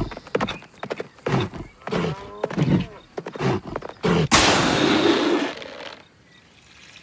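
Cartoon sound effects: a quick run of short animal-like vocal calls, then a loud rushing noise for about a second and a half.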